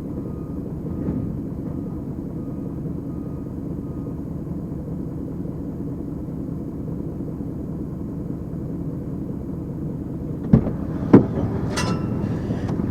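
A heavy machine's diesel engine running with a steady low rumble while a car is crushed, then two sharp metal bangs close together near the end, followed by a brief clatter.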